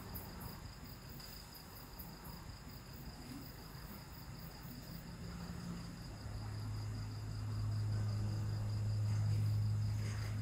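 Crickets chirring steadily. About six seconds in, a steady low hum comes in and grows louder, becoming the loudest sound.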